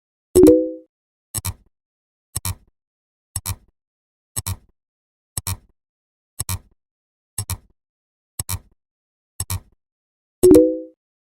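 Short sound effect repeating about once a second, one for each number counted. About half a second in and again near the end, ten beats apart, a louder, longer pitched chord sounds in its place, marking every tenth number.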